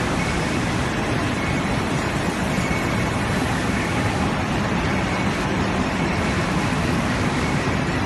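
Steady, even machinery din of wire-and-cable making machinery running, including a 1250 mm single-twist cabling machine for power cable.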